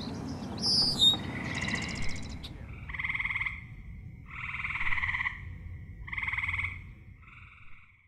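Frog calling: four short pulsed trills, each under a second, come at roughly one-to-two-second gaps, the last one weaker. A few bird chirps sound in the first two seconds, and a low steady rumble lies underneath.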